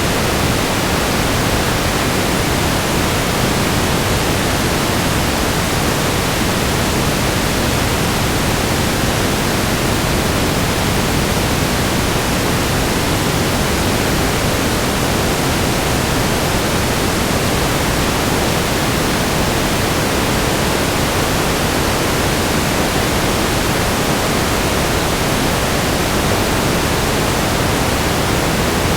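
Steady static noise: an even, unchanging hiss spread across all pitches, loud and constant.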